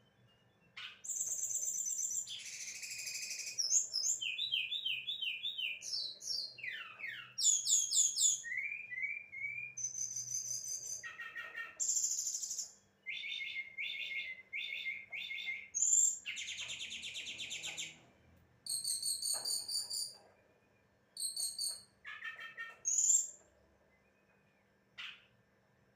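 Brown-chested jungle flycatcher singing a long, varied song of rapid high trills, chirps and short whistled phrases, broken by brief pauses, then only a few short notes near the end.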